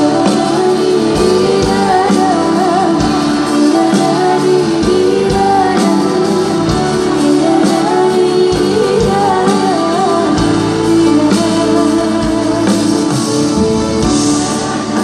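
A live pop band plays a sholawat song while a woman sings the melody with wavering, ornamented runs, over drums, bass guitar and keyboard.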